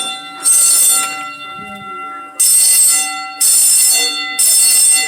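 A building fire alarm sounding in loud, evenly pitched blasts grouped in threes: one blast about half a second in, a pause, then three blasts about a second apart. This is the repeating three-pulse evacuation pattern.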